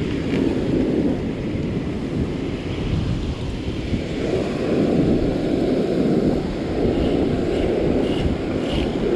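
Wind buffeting the microphone over the wash of surf breaking on the beach, a steady rumbling roar.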